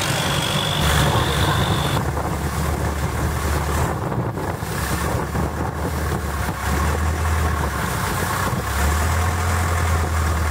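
Long-tail boat engine running, a steady low drone that shifts slightly in pitch a few times.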